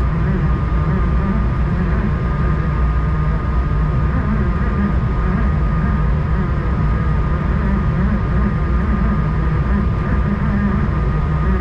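Cabin noise of an Airbus A220 on final approach: a steady low rumble of airflow and its Pratt & Whitney PW1500G geared turbofans, with a thin steady whine above it.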